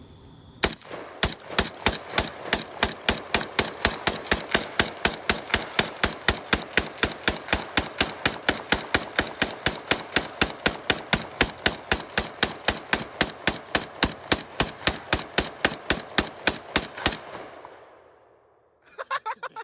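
A long, rapid string of evenly spaced gunshots, about four a second for some sixteen seconds, then it stops. A brief clatter follows near the end.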